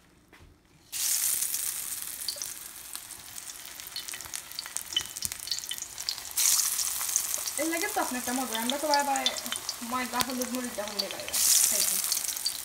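Batter-coated vegetable slices for aloo and begun bhaja hitting hot oil and sizzling. The sizzle starts suddenly about a second in, then steps louder about midway and again near the end as more slices go into the pan.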